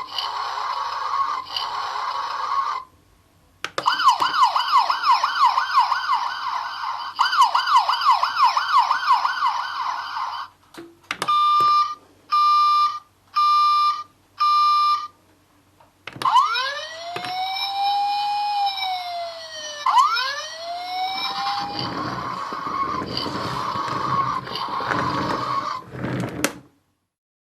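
Electronic sound effects from a toy car's small speaker, played one after another. A buzzing tone stops about 3 seconds in. A fast warbling siren follows, then four short beeps about a second apart, then sliding whistle-like tones that fall and rise, and last a rougher, noisier effect that cuts off shortly before the end.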